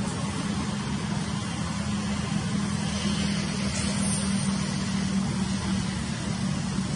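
Steady low mechanical hum under an even wash of noise, with a brief hiss about three seconds in.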